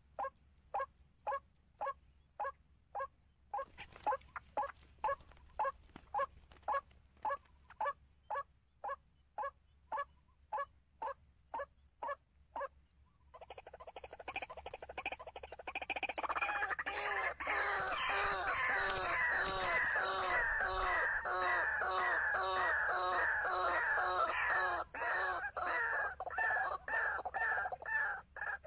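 Birds calling: a steady series of short calls, about two a second, then from about halfway a louder, denser run of rapid chattering calls takes over.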